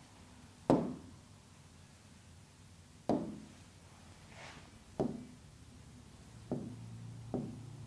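Stylus tapping and knocking on an interactive whiteboard screen while writing and pressing toolbar buttons: about five sharp taps, one to two seconds apart, the loudest about a second in.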